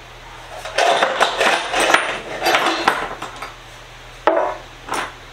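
Small metal chucks rattling and clinking inside a metal tin as it is opened and tipped out onto a workbench, a dense clatter lasting about two seconds, followed by two sharp knocks of metal parts set down.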